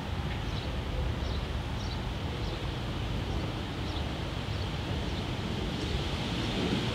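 Steady room tone: a low hum and hiss with faint small ticks now and then, and no distinct event.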